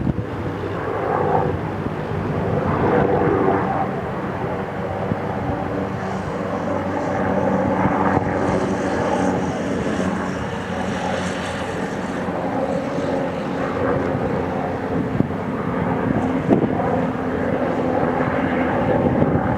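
Airbus H225 helicopter running steadily, its engines and rotor giving a constant whine and drone that swells slightly and fades.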